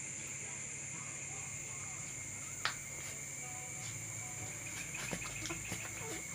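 Crickets chirring steadily in the background, a continuous high-pitched drone, with a sharp click a little before halfway and a run of small faint clicks near the end.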